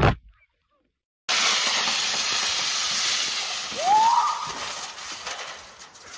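A steady rushing hiss starts abruptly after a second of silence and fades over the last two seconds. A short rising cry is heard about four seconds in.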